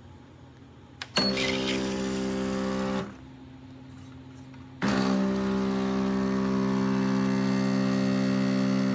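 Espresso machine's vibratory pump buzzing steadily as it pushes water through. It starts with a click about a second in, stops around three seconds, and starts again near five seconds.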